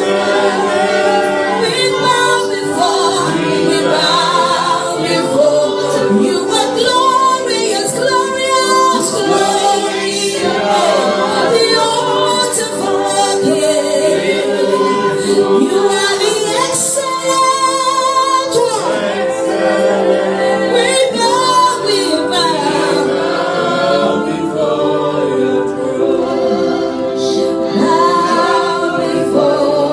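A group of voices singing a worship song together, with long held notes and female voices prominent.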